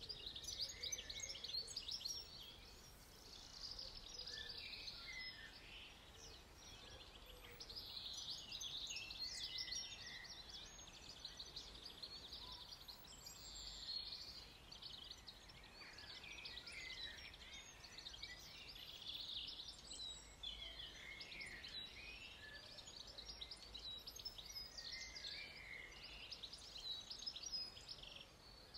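Birds singing in the countryside: many quick, high chirps and trills overlapping without a break, faint, over a weak low rumble.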